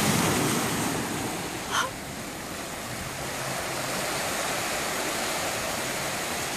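Ocean surf washing around shoreline rocks: a steady rush of water, a little louder in the first second. A short high chirp sounds about two seconds in.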